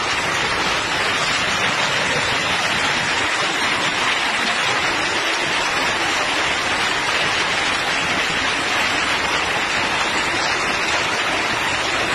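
Torrential rain pouring down in a strong wind: a steady, loud hiss.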